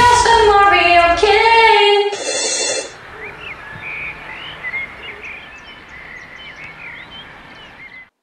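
The tail of the show's rock theme music over about the first three seconds, then a faint outdoor ambience: a steady background hiss with birds chirping. It fades out just before the end.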